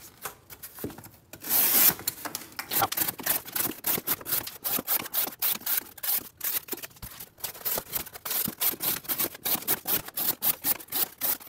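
Saber-ground fixed-blade neck knife slicing strips off a sheet of corrugated cardboard on its sharp factory edge. A quick run of short slicing strokes, the longest and loudest about a second and a half in.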